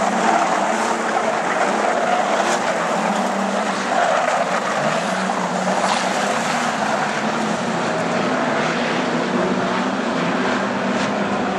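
Engines of several street stock sedans at racing speed on a dirt oval, a steady loud engine note under a dense rush of noise, with a few brief sharp ticks.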